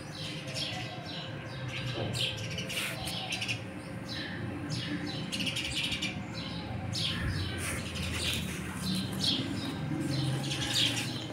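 Small birds chirping: a busy run of many short, high chirps, several overlapping, over a low steady background hum.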